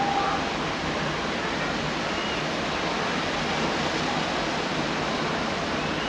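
Steady rushing outdoor ambience, an even hiss with no distinct events, the blended wind and distant city noise heard from a high-rise overlooking the sea.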